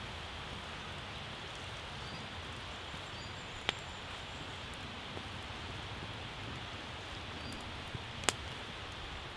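Wood campfire burning with a steady hiss and two sharp pops, one a little over a third of the way in and one near the end, with snails bubbling in their shells beside the fire.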